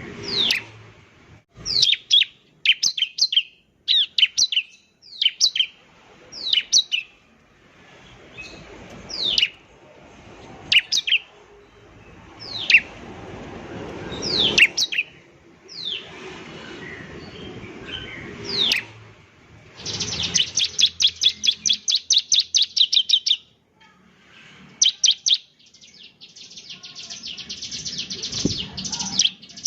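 Bar-winged prinia (ciblek) singing briskly: a series of sharp, high notes sweeping downward, about one every second. About twenty seconds in, this breaks into a fast trill of rapid repeated notes lasting some three seconds, and a second trill follows near the end.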